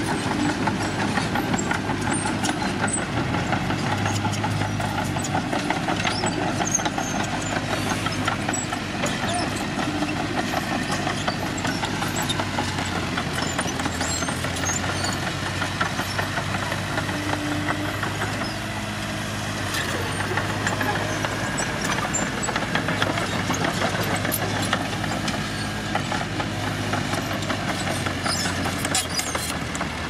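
Heavy diesel engines running steadily: a dump truck tipping a load of soil, joined later by a Mitsubishi BD2J crawler bulldozer working beside it.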